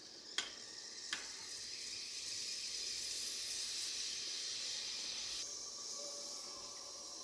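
Anchovy broth boiling hard in an earthenware pot, a steady bubbling hiss, with two sharp clinks of a metal spoon against the pot about half a second and a second in as the stock pouch is lifted out.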